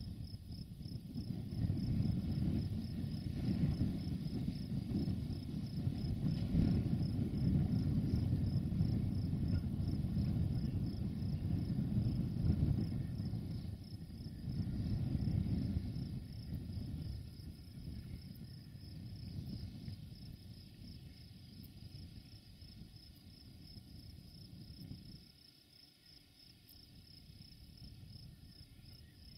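Crickets chirping in a steady, fast high pulsing, over the low rumble of a distant Desiro diesel multiple unit running through the valley. The rumble is strongest in the first half and fades away as the train moves off, leaving only the crickets near the end.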